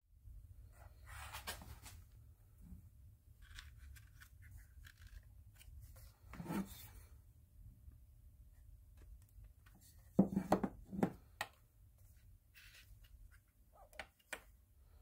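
Handling noises of a plastic motorbike tail light and a wooden-handled tool: scraping and rubbing, with three or four quick knocks about ten seconds in. A low hum runs underneath.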